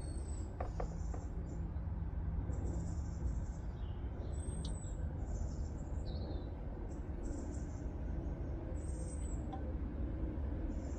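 Small birds chirping, with repeated short high chirps and a thin high whistle every few seconds, over a steady low background rumble.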